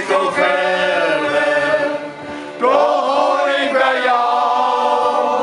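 Male shanty choir singing a Dutch sea shanty together, with a brief pause between phrases about two seconds in.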